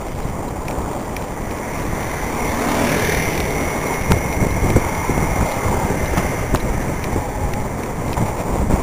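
Wind buffeting the microphone of a camera on a moving bicycle, with road rumble throughout. About three seconds in it grows louder as a motor scooter passes, leaving a steady high whine, and a few sharp knocks follow.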